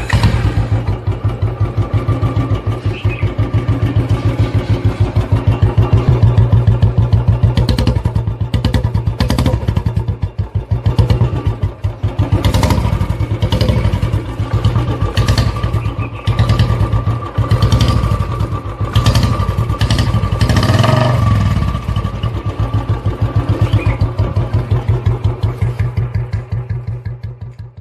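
Royal Enfield Bullet single-cylinder motorcycle engine running with its even, loud thumping beat, revved briefly a few times along the way. The sound cuts off near the end.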